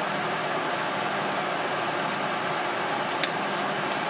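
A few small, sharp clicks as small parts are handled and fitted onto a printed circuit board, over a steady fan-like noise.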